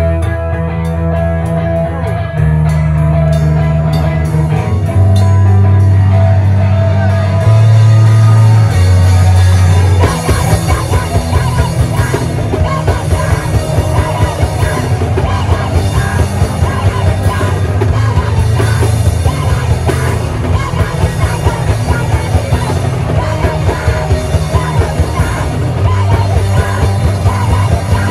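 Loud, heavy rock band playing live. Low chords ring out held for about ten seconds, then the drums come in with a fast, driving beat under the guitars, with some vocals.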